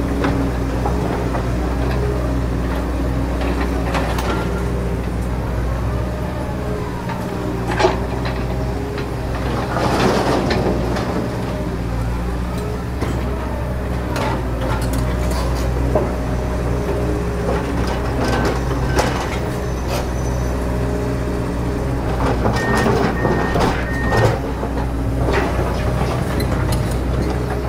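Komatsu PC200 hydraulic excavator's diesel engine running steadily under load, its hydraulic whine stepping up and down in pitch as the boom and bucket work. Occasional sharp knocks come from the bucket and linkage as it digs into the muddy bank.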